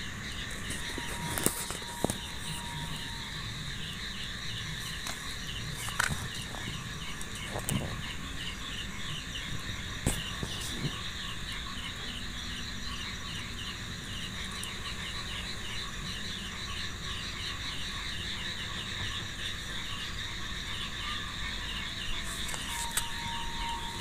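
Steady night chorus of calling insects and frogs: a fast pulsed call repeats over a constant shrill drone. A few sharp clicks stand out now and then.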